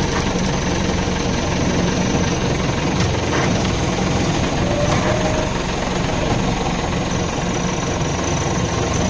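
Safari jeep's engine running steadily with an even, unchanging hum.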